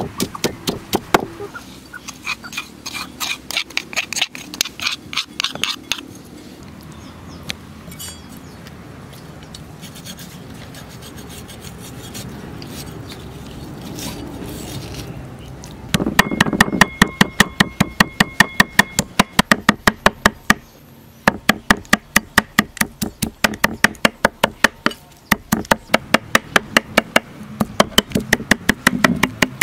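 A wooden pestle pounding a paste in a wooden mortar with a run of sharp thuds, then a cleaver slicing through meat on a wooden chopping board. About halfway through, the cleaver starts chopping fast on the board, about three or four strikes a second, with a few gaps.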